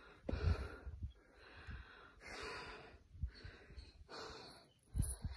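A hiker breathing heavily, out of breath from the climb, with slow breaths about once a second. A few low thumps from footsteps or the phone being handled come in between.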